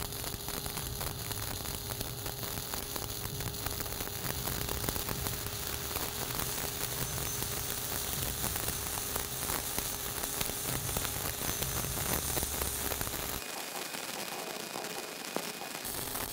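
Shielded metal arc (stick) welding with a 7018 electrode: the arc crackles and sizzles steadily as a cap pass is run on a horizontal plate joint. Near the end the low rumble drops out for about two seconds.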